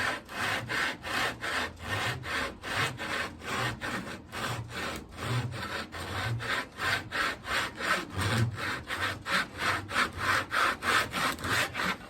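Japanese hand saw cutting wood in quick, even strokes, about three a second, sawing through two overlapped frame pieces at once so both sides of the joint match.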